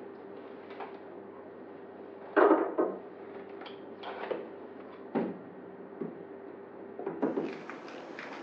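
Wooden knocks and clunks from the front panels of an upright piano being taken off and handled: several separate thumps, the loudest about two and a half seconds in.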